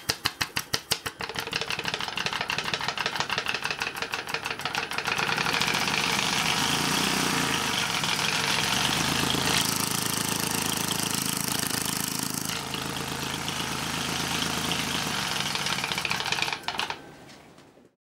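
Open scroll compressor with its shell cut off, running with its loose top scroll held down by hand so that it compresses: a loud, fast rhythmic chatter with rushing air, getting louder about five seconds in. The top piece moves around unless clamped, so it runs rough. The sound drops away about a second before the end.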